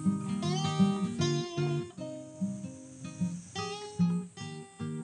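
Background music: an acoustic guitar playing a run of plucked notes and strummed chords.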